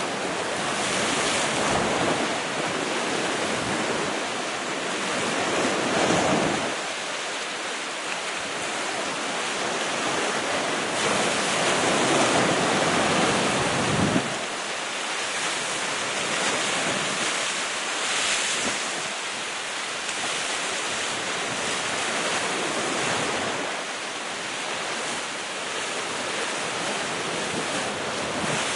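Sea waves breaking against rocky cliffs below, a continuous surf rising into louder swells every few seconds, with wind buffeting the microphone.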